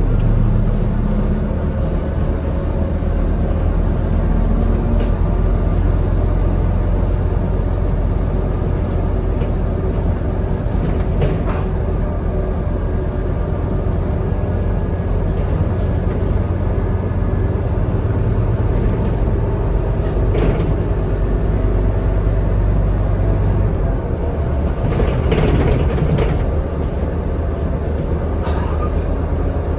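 Scania N230UD double-decker bus's diesel engine and road noise heard from inside the upper deck on the move: a steady low drone with occasional clicks and rattles. The drone shifts lower about 24 seconds in.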